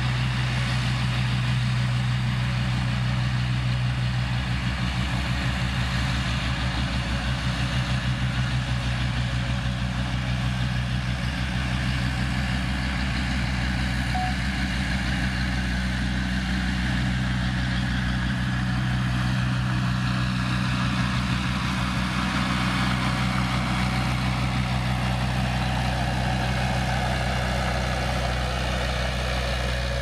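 Komatsu D20A small crawler bulldozer's diesel engine running steadily as the dozer pushes dirt with its blade.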